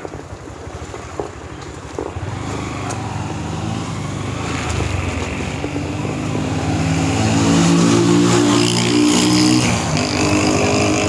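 Motorcycle engine pulling away and speeding up, growing louder from about two seconds in, with wind rushing over the microphone.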